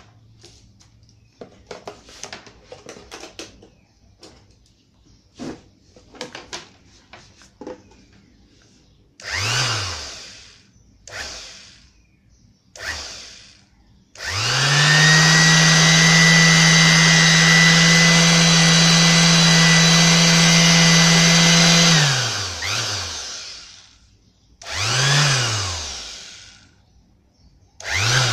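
Bosch GSS 2300 orbital sander motor switched on in a few short blips, each spinning up and coasting straight back down. It is then run steadily, unloaded and held off the work, for about eight seconds before winding down, followed by two more short blips. Before the first blip there are light clicks and rustles of the tool being handled.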